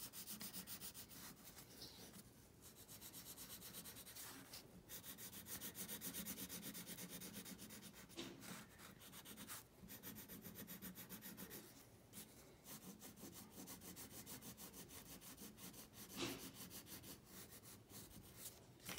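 Wax crayon rubbing on paper in quick back-and-forth shading strokes, faint and scratchy, with a few brief pauses. The crayon is being pressed lightly for pale shading.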